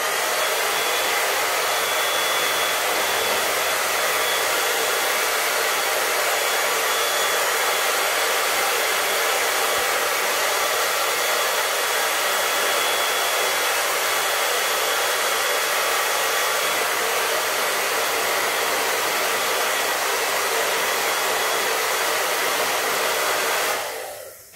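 Hair dryer blowing steadily to dry a damp rubber slide sandal, a rushing air noise with a faint whine on top; it switches off and dies away near the end.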